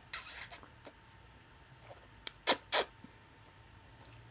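A person slurping ramen noodles off a fork: one half-second slurp right at the start, then two short, sharp slurps about two and a half seconds in.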